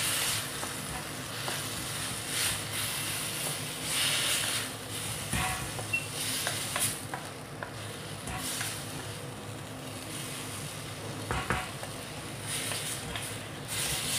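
Wooden spatula stirring and scraping lobia beans and potatoes around a metal kadhai while the food sizzles over high heat, the masala being fried (bhuna). A few sharp knocks of the spatula on the pan.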